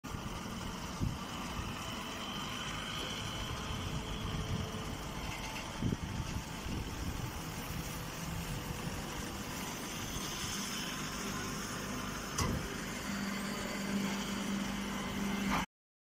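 Straw baling machine running with a steady mechanical noise and a few sharp knocks. A low steady hum comes in near the end.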